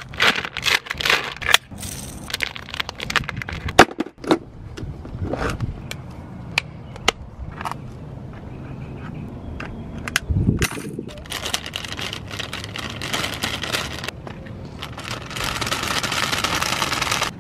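Plastic lure packets crinkling and rustling, with sharp clicks and knocks from a clear plastic tackle box as soft-plastic baits are handled and dropped into its compartments. Near the end, a steady rustle as a bag of baits is shaken out over the box.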